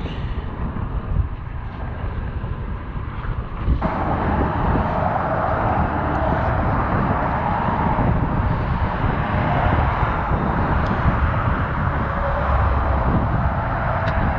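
Steady outdoor noise of passing road traffic with wind on the microphone; about four seconds in it suddenly grows louder and brighter and then holds steady.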